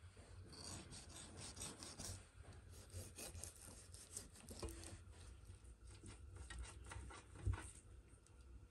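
Kitchen knife sawing through the crisp, roasted skin of a whole duck: faint, repeated short rasping strokes.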